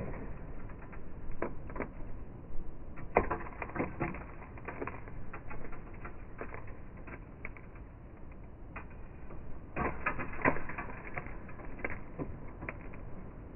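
Irregular light clicks and taps from hands working at food preparation, coming in small clusters with the busiest stretches a few seconds in and again near ten seconds in.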